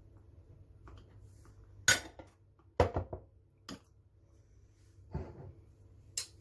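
Kitchenware clinking and knocking against dishes: four sharp clinks spread over a few seconds, over a faint steady hum, as dates and raisins go into the drink mixture.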